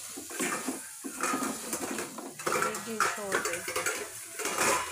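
A wooden spatula stirring and scraping thick curry around a metal cooking pot, clattering irregularly against its sides and bottom while the dish is cooked down.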